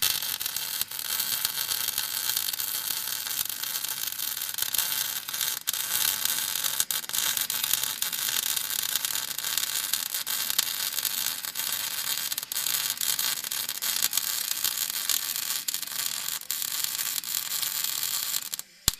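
MIG welding arc from a Kraft & Dele inverter welder, crackling steadily through one continuous weld, cutting off at the very end.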